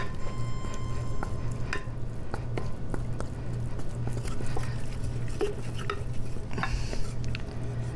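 Wooden spatula stirring and working a thick choux paste in a stainless steel saucepan, with irregular scrapes and taps against the pan as the paste is cooked and dried into a ball. A steady low hum runs underneath.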